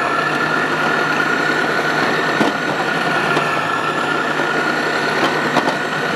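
Vidiem Tusker mixer grinder motor running at speed with its food-processor slicing disc, cutting onion into thin strips. It makes a steady high whine with a few scattered clicks.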